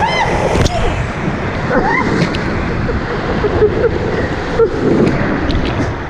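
Water rushing and splashing around an inflatable raft sliding down an enclosed water-slide tube, with riders' brief yells and squeals over it.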